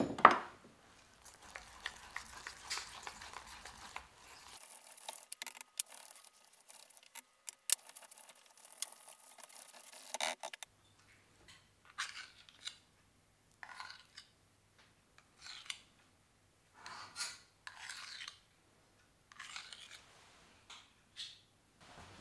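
A wire whisk and then a metal spoon scrape and stir thick semolina dumpling dough in a stainless steel pot, opening with a sharp clink against the pot. For the first ten seconds or so the scraping is busy and scratchy with small clicks; after that it slows to separate scraping strokes about once a second.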